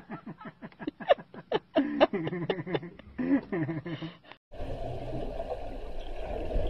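A man talks for about four seconds. A sudden cut then brings a steady rush of water and bubbling with a low rumble, heard underwater.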